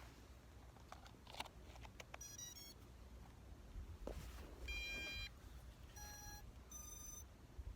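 Electronic beeps: a quick pair of short chirps, then three separate clear beeps at different pitches, the first one longer and louder than the others.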